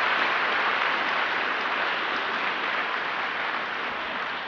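A large audience applauding, loud at first and slowly dying away.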